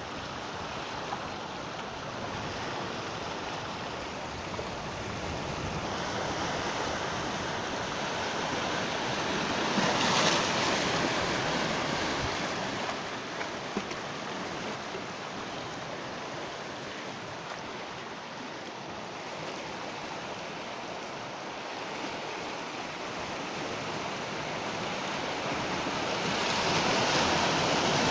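Sea waves breaking and washing up the shore in a continuous surf, swelling louder with one wave about a third of the way in and another near the end.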